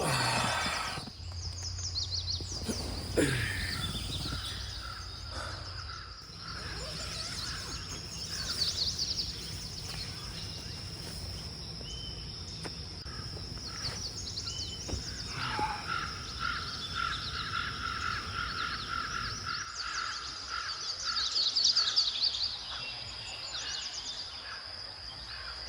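Forest ambience: birds calling and chirping in short bouts over a steady high-pitched insect drone.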